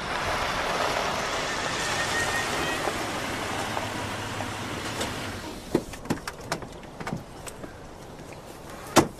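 A car rolling along a dirt road, engine running and tyres on the gravel, coming to a stop about five and a half seconds in. After that come a few small knocks, then a sharp click of a car door being opened near the end.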